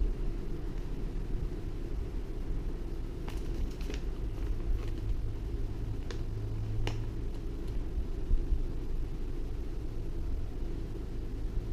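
Steady low rumble with a few light clicks and taps in the middle, typical of handling noise during an unboxing.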